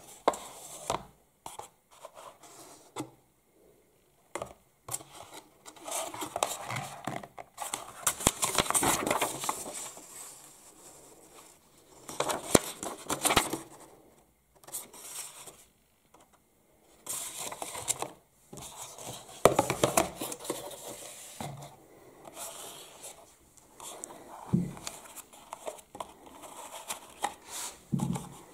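Paper and cardboard packaging being handled: a printed card and folded paper leaflet lifted out of a cardboard box and rustled, with scraping and crinkling in irregular bursts and a few soft knocks near the end.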